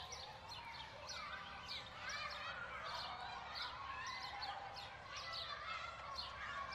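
Playground ambience: children's voices calling and playing, mixed with many birds chirping in quick, overlapping calls.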